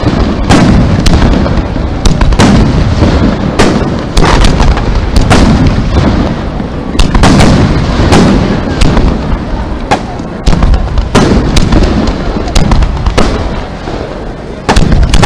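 Aerial firework shells bursting in quick succession: over twenty sharp bangs, about one or two a second, each trailing off in a low rumbling echo.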